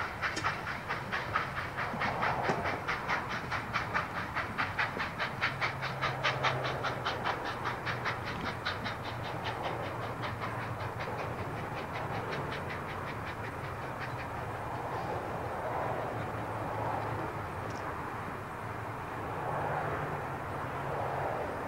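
Steam locomotive pulling away, its exhaust beats coming rapid and regular and fading out about two-thirds of the way through as it recedes. A low steady rumble of the train is left after that.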